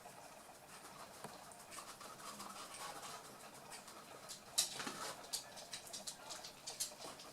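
Eight-week-old toy poodle puppies playing, their paws and claws pattering and clicking irregularly on the floor, with one sharper click about four and a half seconds in.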